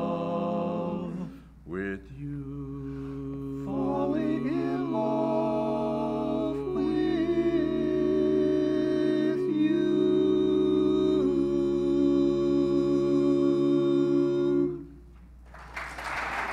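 Barbershop quartet of men's voices singing a cappella in close harmony: a brief break about a second in, then a long closing chord built up voice by voice and held, ending the song. Near the end the chord is released and applause starts.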